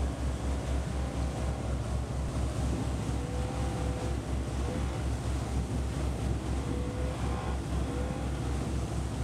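RNLI D-class inflatable lifeboat running at speed: its outboard engine, water rushing and splashing past the hull, and wind buffeting the microphone, with a steady low pulsing throughout.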